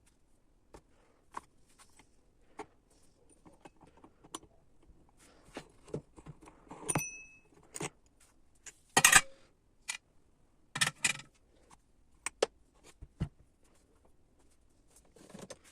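Scattered clicks and metallic clinks of tools and small chainsaw engine parts being handled, with louder clatters about 7, 9 and 11 seconds in; the one near 7 seconds leaves a short metallic ring.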